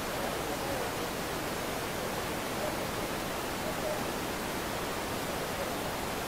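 A steady, even hiss of outdoor background noise, with no distinct event in it.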